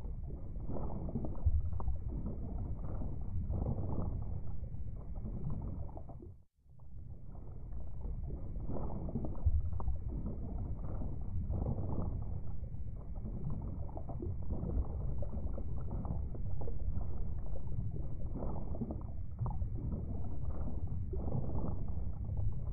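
Ship-at-sea ambience: a low, muffled rumble of water against a wooden hull that swells and ebbs unevenly. It cuts out for a moment about six and a half seconds in, then resumes.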